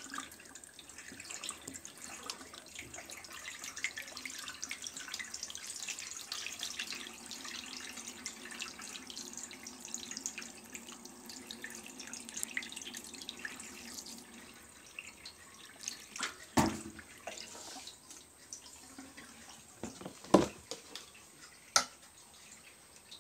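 Wash water from a Kuppet portable twin-tub washing machine pouring out through its drain hose in a steady splashing stream, thinning out after about fifteen seconds. A few sharp knocks follow near the end.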